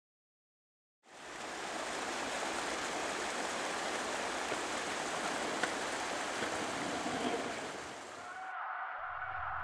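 About a second of silence, then a steady rushing noise; near the end its top drops away and a lower sound comes in.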